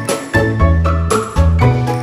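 Background music: a bright, tinkly melody over a steady bass with a regular beat.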